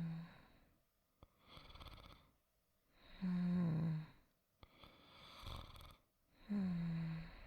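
A person snoring softly and rhythmically. Pitched snores come about every three seconds, each dropping slightly in pitch, with a quieter breathy exhale between them.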